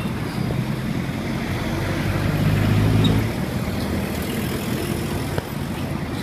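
Street traffic with a motor vehicle engine passing close, loudest about three seconds in.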